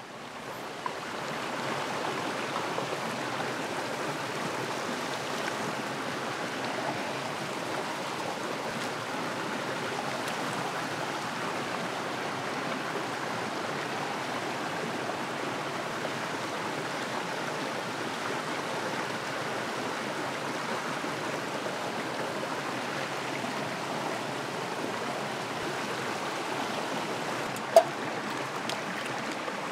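A forest stream flowing over rocks: a steady rush of water. One short sharp knock near the end.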